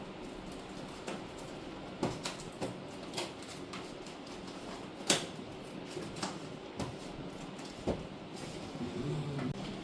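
Scattered knocks and clicks of things being handled and set down, irregularly spaced, with the sharpest knock about five seconds in, over a faint steady background.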